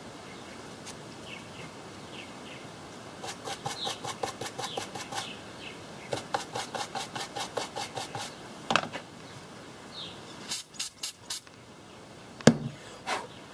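Quick, rhythmic rubbing strokes, about six a second, as a rag scrubs along an old engine's spark plug wire, in two runs of about two seconds each. These are followed by a few sharp clicks and knocks of handling on the bench.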